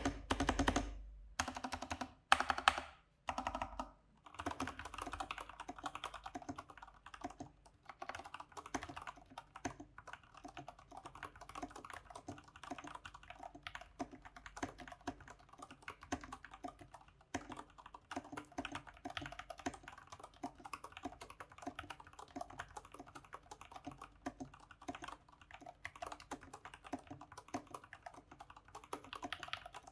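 Stock IQUNIX mechanical keyboards being typed on fast and continuously. There are a few heavier strokes in the first few seconds, then steady rapid clacking. From about seven seconds in it is the OG80 WormHole with Cherry MX Brown tactile switches.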